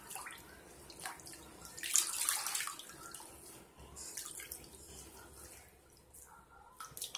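Hands squeezing and kneading a soapy nylon mesh shower pouf: wet squishing of lather, with a louder burst of hissing suds about two seconds in.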